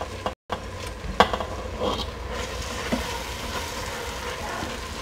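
Lentils sizzling as they go into the hot stainless inner pot of an Instant Pot on sauté, over fried onion and berbere, with a wooden spoon stirring and a few clicks against the pot. The sound cuts out for a moment near the start.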